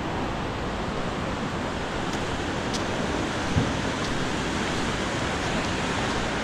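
Steady rushing of river water running through a gorge, with a short thump about three and a half seconds in.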